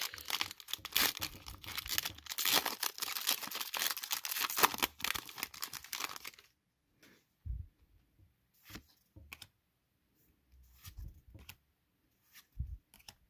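Foil Pokémon booster pack wrapper being torn open, crinkling loudly for about six seconds. Then it goes quieter, with scattered soft rustles and taps as the trading cards are handled.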